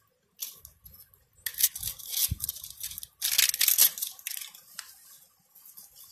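Onion skin being peeled off with a small knife, in several short tearing bursts, with a brief dull bump about two seconds in.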